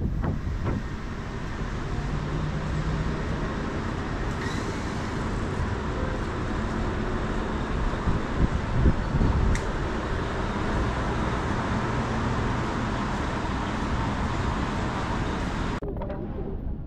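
City street traffic on a wet road: cars passing with a steady hiss and a low rumble, swelling louder about halfway through. Near the end the sound changes abruptly to a duller street background.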